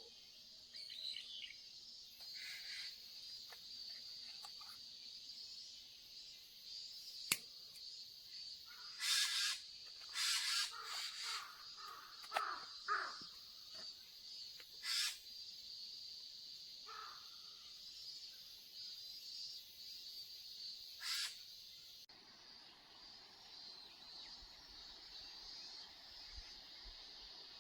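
A crow cawing, a series of harsh calls about nine to fifteen seconds in and once more near twenty-one seconds, over a steady high-pitched background chorus. A single sharp click comes about seven seconds in.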